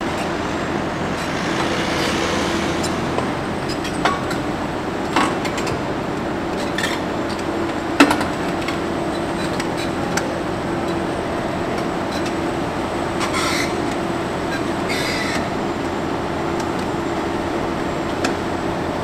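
Bauer GB 50 hydraulic grab rig running steadily with a constant mechanical hum. Scattered metallic knocks come through, the sharpest about eight seconds in, and two short hissy bursts come in the second half.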